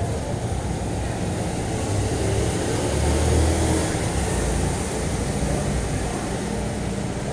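Street traffic: a steady hum of passing vehicles, with one getting louder and then fading about halfway through.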